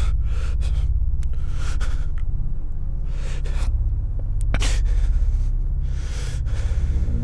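A young man breathing heavily and gasping in fear, a breath every second or two, over a deep steady rumbling drone.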